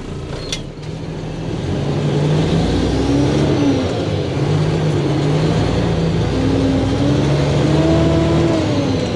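Mack tri-axle dump truck's diesel engine pulling the truck away, heard from inside the cab, its pitch climbing and dropping back about three times as it shifts up through the gears. It gets louder about two seconds in.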